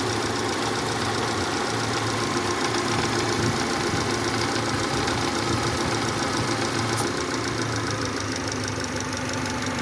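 2011 Subaru Legacy engine idling steadily with a rapid knocking rattle over it, the noise the car was brought in for and blamed on a faulty A/C compressor.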